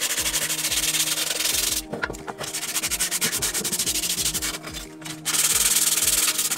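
Sandpaper rubbed by hand over the sheet-metal blower housing of a Briggs & Stratton engine in quick back-and-forth strokes. It goes softer with a few light knocks from about two seconds in, and gets loud again near the end.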